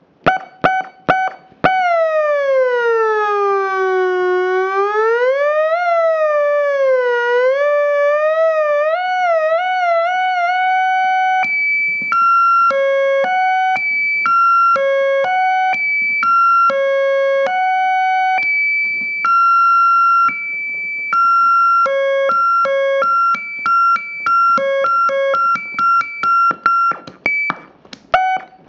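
Circuit-bent optical theremin sounding through a small amplifier: a buzzy electronic tone that stutters in short blips, then glides down and back up and wavers ever faster. About halfway it starts jumping between a few fixed pitches in choppy steps as the pitch-bend switches are worked, breaking back into short blips near the end.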